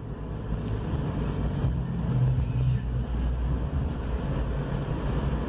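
Volkswagen Gol's 1.6 EA111 four-cylinder engine running at low revs while the car drives, with road rumble, heard from inside the cabin. A low, steady engine hum grows a little stronger about two seconds in.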